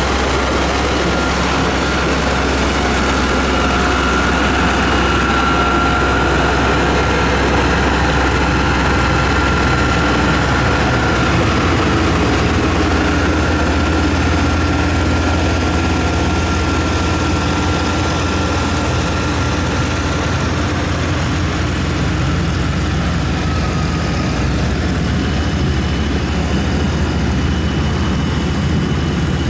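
Diesel engine of a heavy road-construction machine, such as a motor grader or road roller, running steadily with a deep drone and a faint wavering whine above it.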